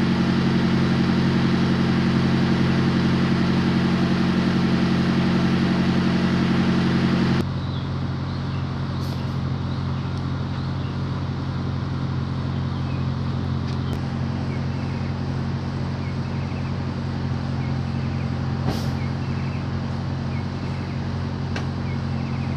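Parked delivery truck running, a steady low mechanical drone. About seven seconds in it drops suddenly to a quieter steady hum, with faint chirps and a few light clicks over it.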